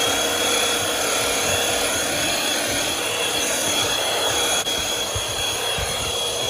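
Handheld cordless vacuum cleaner running steadily with a high whine as it is worked over a car's footwell carpet mat.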